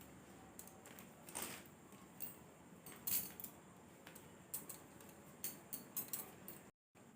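Faint handling noise: scattered short rustles and clicks as T-shirts and their packaging are moved about. The sound drops out completely for a moment near the end.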